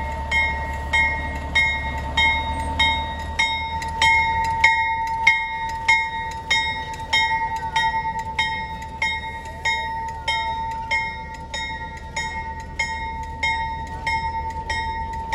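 Small diesel locomotive and its coach rolling slowly past along the rail, with a steady low rumble and a ringing metallic clang repeating evenly about one and a half times a second over a held tone.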